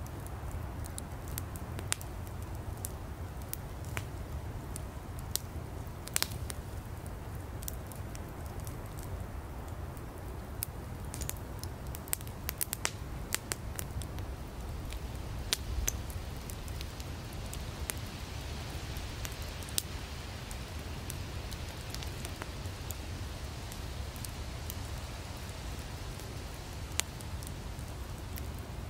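Wood campfire burning: firewood crackling with scattered sharp pops over a steady low rumble, with a hissing that swells for several seconds about two-thirds of the way through.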